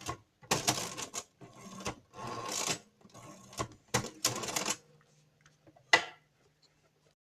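A run of sharp clicks and short rustling, scraping bursts, irregularly spaced, then one last click about six seconds in.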